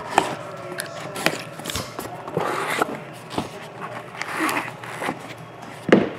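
Hands opening a cardboard trading-card box: tape being cut and peeled off the lid, the lid sliding off, and a card being worked free of its taped foam insert. The sound is scattered light clicks and rustles, with a sharper knock near the end as the box is set down on the table.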